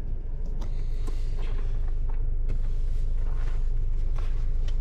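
Car engine idling with a steady low rumble, overlaid by scattered rustles and clicks of clothing and gear being handled at the open rear hatch.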